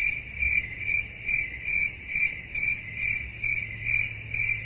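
Crickets chirping in a steady, regular rhythm of about two chirps a second, with no other sound standing out.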